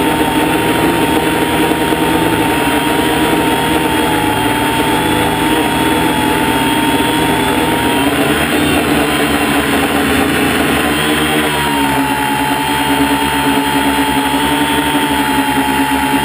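Multirotor drone's electric motors and propellers whining steadily, heard up close from its own onboard camera, the pitch wavering slightly and shifting about eleven seconds in.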